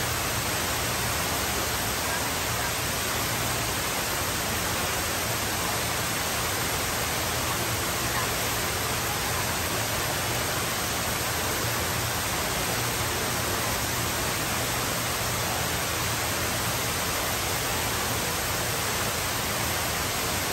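Tall indoor waterfall pouring down in a broad sheet, a steady rushing of falling water that does not change.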